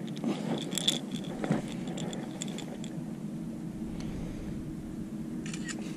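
Small clicks and light metallic rattles of a fishing hook and line being handled as a catfish is unhooked, mostly in the first second and a half and again near the end, over a steady low hum.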